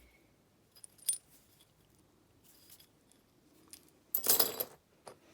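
Light metal clinks of a thin bike chain lock being handled, with one louder rattle of the chain links about four seconds in.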